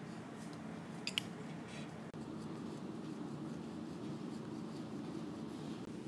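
Pencil scratching short strokes on cardboard, with a couple of sharp ticks about a second in, over a steady low hum.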